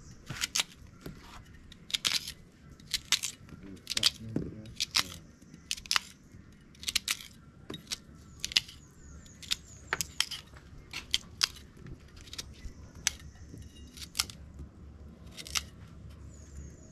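An irregular series of sharp clicks and knocks, about one or two a second.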